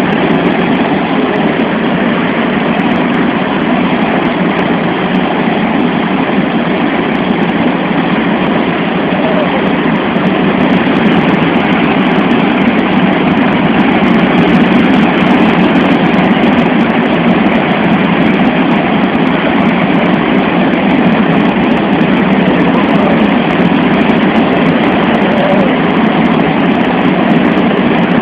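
Loud, steady rush of a Boeing C-17 Globemaster III's four turbofan engines and airflow, heard from inside the cargo hold in flight. It grows a little louder about ten seconds in.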